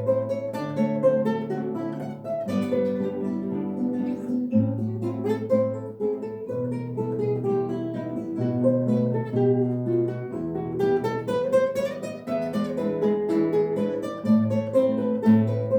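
Acoustic guitar ensemble playing an instrumental Russian folk melody: a plucked tune over bass notes that change every two seconds or so.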